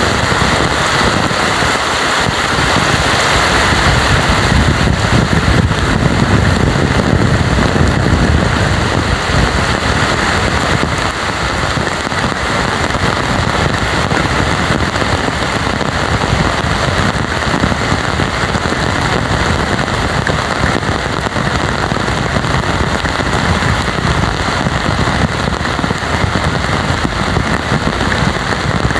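Heavy rain pouring steadily, a dense hiss of falling drops with a low rumble beneath, swelling slightly a few seconds in and then easing a little.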